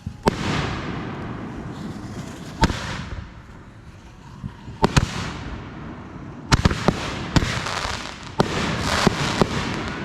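Consumer aerial fireworks going off: about eight sharp bangs at irregular intervals, coming faster in the second half, each one trailing off.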